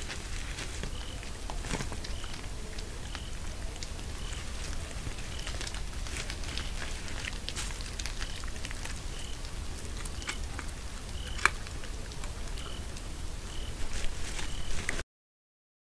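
Night ambience picked up by a trail camera: a steady low hum under a short, high call repeating about once a second, with scattered faint clicks and ticks. The sound cuts out abruptly shortly before the end.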